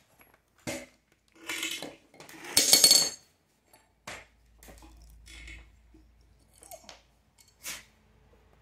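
A string of short metal clinks and clatters, the loudest about two and a half seconds in, then several quieter ones: an adjustable wrench and a steel clamp bolt being handled on a concrete floor as the bolt is pulled out of a truck tie rod clamp.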